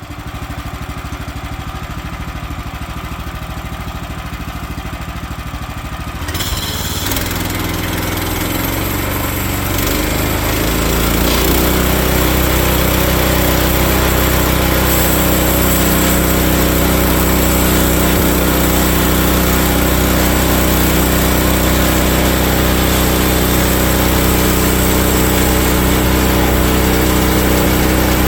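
A band sawmill's small gasoline engine running. About six seconds in it speeds up, rises in pitch, and settles at a steady high speed by about twelve seconds in.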